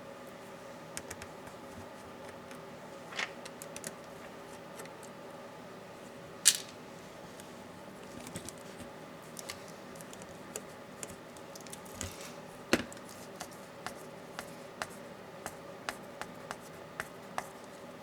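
Small clicks and taps of tools and laptop parts being handled during disassembly of a Dell Latitude 7410, with the sharpest click about six and a half seconds in and another near the middle, then a run of light ticks about every half second near the end, over a faint steady hum.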